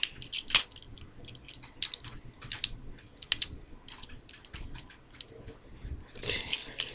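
Plastic Transformers Generations War for Cybertron Optimus Prime figure being transformed by hand: its plastic parts and joints click and rattle as they are moved, in scattered sharp clicks that grow busier near the end.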